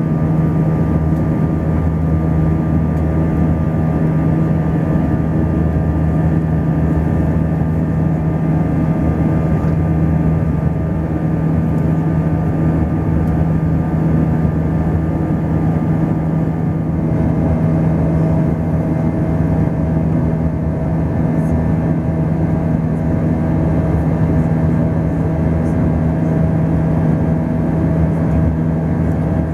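Airbus A320 cabin noise: a loud, steady drone of the jet engines and rushing air, with a low hum and a few steady higher tones. A new steady tone joins about halfway through.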